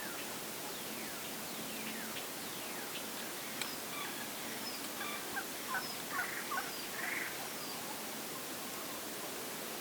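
Birds calling in the woods: a run of short, quick falling chirps, busiest and loudest about six to seven seconds in, over a steady background hiss, with one sharp click midway.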